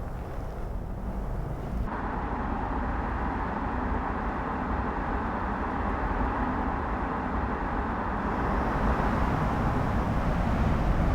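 Steady road and tyre noise of a Mercedes-Benz EQS electric saloon being driven, with no engine note. A brighter hiss comes in suddenly about two seconds in, and the noise grows a little louder toward the end.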